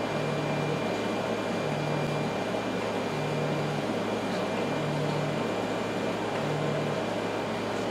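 Tevo Tornado 3D printer running: a steady hum, with a low motor tone that comes on for under a second about every one and a half seconds, five times, as the Z-axis stepper motors raise the gantry.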